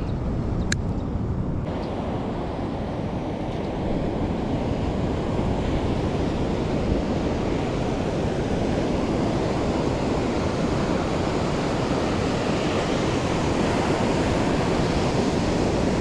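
Ocean surf washing onto a beach, mixed with wind on the microphone, as a steady, even rush of noise.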